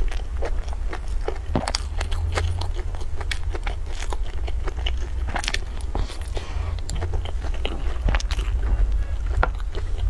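A person biting into and chewing soft steamed buns close to the microphone, with many irregular wet mouth clicks and smacks, over a steady low hum.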